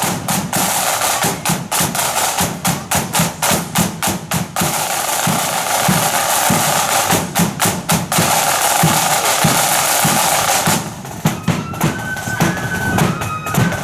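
Marching flute band drums: snare drums rattling over bass drum beats, with a long snare roll partway through. About three-quarters of the way in, the flutes come in playing a tune over the drums.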